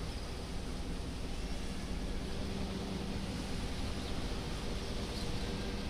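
Steady background hiss with a faint even hum: the open ambience of a huge congregation standing silently in prayer, with no recitation.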